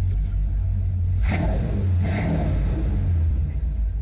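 Car engine and road rumble heard from inside the cabin while driving, a steady low drone.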